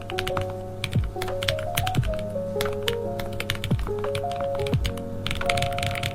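Typing on a Lofree Flow Lite low-profile mechanical keyboard with gasket mount and full-POM linear switches: a stream of irregular, quick keystroke clacks. Background music with a steady beat plays under it.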